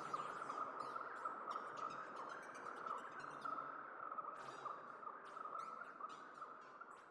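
Csound-synthesized electronic accompaniment: a steady hiss of generated noise centred in the mid range, with quick, bird-like synth chirps and glides scattered above it, growing a little quieter near the end.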